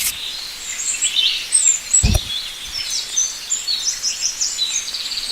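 Several small birds chirping at once, with quick repeated chirps and trills. A single short, low thump comes about two seconds in.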